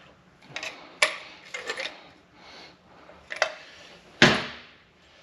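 Steel bolts clinking against each other and a tin can as they are handled in it, several separate sharp metallic clinks. A louder metal clank with a short ring about four seconds in.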